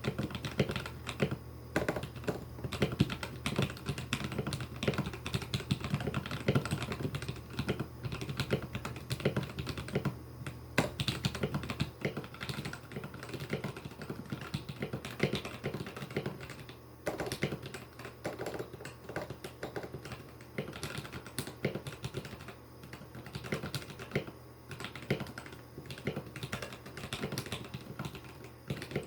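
Continuous fast typing on a mechanical keyboard with lubed, modified linear switches and stabilizers: a dense run of keystroke clicks and clacks with a few short pauses.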